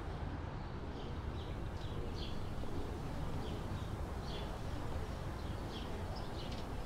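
Outdoor ambience: small birds chirping, short high chirps every half second or so, over a steady low background rumble.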